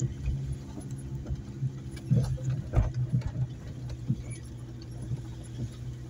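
Vehicle engine running at low speed, heard from inside the cabin, with knocks and rattles as it bumps along a rough dirt track; the loudest thumps come about two to three seconds in.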